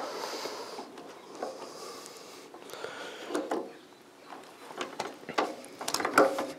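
Scattered clicks and knocks of hands working on a stopped vintage motorcycle, with no engine running.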